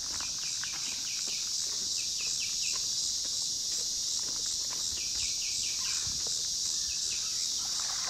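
A steady, high-pitched insect chorus, with short falling bird chirps in quick runs of three or four, about four times, and footsteps.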